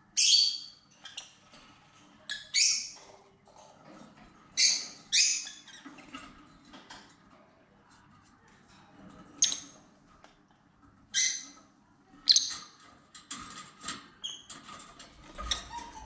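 Rosy-faced lovebirds calling: about seven short, shrill, high-pitched chirps at irregular intervals, some coming in close pairs.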